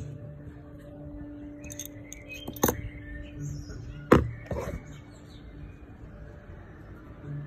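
Small metal clicks and taps as pliers and a vape coil head are handled on a table, with two sharp clicks about two and a half and four seconds in, over a faint steady hum.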